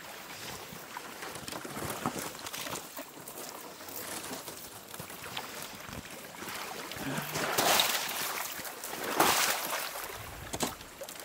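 Small boat being hauled through reeds and marsh water skinned with thin ice: sloshing and brushing of the hull and the wader's steps, with small clicks and two louder swishes in the second half.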